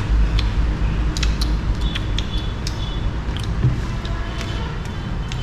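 Scattered light clinks and ticks of cutlery against plates as people eat, over a steady low background hum.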